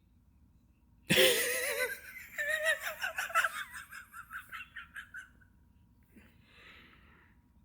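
A person bursting into hearty laughter about a second in, breaking into a long run of repeated 'ha' pulses that fade away over a few seconds.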